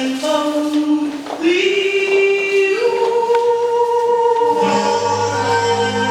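Slow music with a choir singing long held notes. The melody steps up twice in the first half, and a low bass note comes in about two thirds of the way through.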